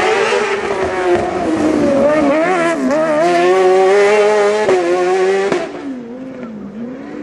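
Fiat 500 race car's BMW S1000RR superbike inline-four engine revving hard through a slalom, its pitch swooping up and down as the throttle opens and closes, with a few sharp cracks. It drops in loudness near the end as the car pulls away.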